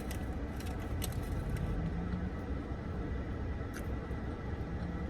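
A car's air conditioning and engine run as a steady hum heard inside the cabin, with a few faint clicks.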